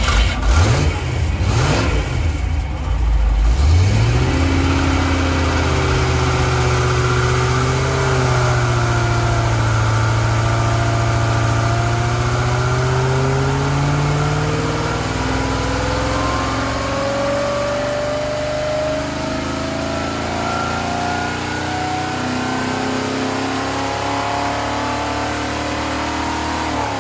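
Rover 3.5-litre V8, a standard rebuild, running on an engine dyno. The revs rise quickly in the first few seconds, then the engine note climbs slowly and steadily through a long run up the rev range, and falls away right at the end.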